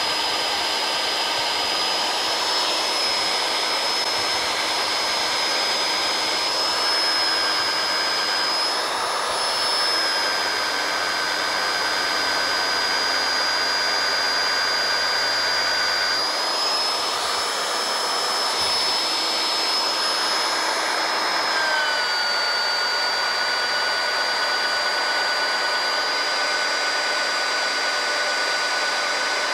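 Rotabroach Panther magnetic drill running under load as its annular cutter bores through a steel beam: a steady high whine over a constant hiss, the pitch shifting slightly now and then and dropping a little about two-thirds of the way through.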